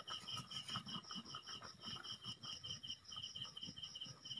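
Crickets chirping in a fast, even pulse, about six chirps a second, high-pitched and faint. Underneath are faint low knocks and scrapes of the metal wok being lifted off the clay stove.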